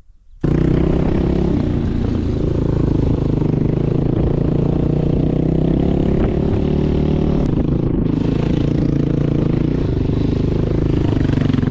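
Motor vehicle engine running hard at high revs, held steady, cutting in suddenly about half a second in, with a brief dip around eight seconds.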